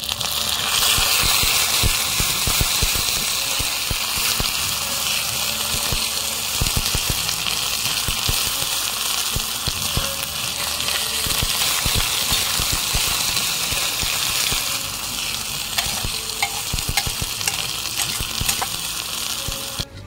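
Food frying in hot oil in a pan: a steady sizzle, with scattered clicks and scrapes as it is stirred.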